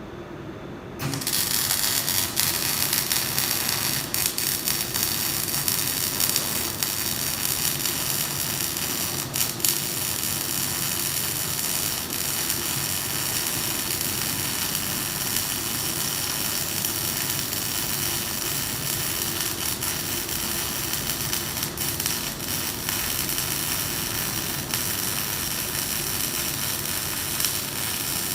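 Electric arc welding: the arc strikes suddenly about a second in, then hisses and crackles steadily, with a few sharper pops.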